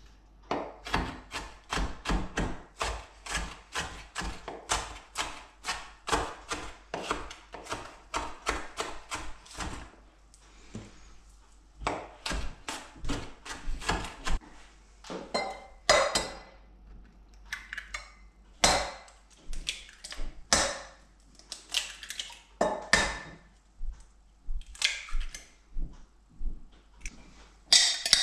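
Chef's knife chopping spring onions on a wooden cutting board: a steady run of knocks about three a second, later turning sparser and irregular.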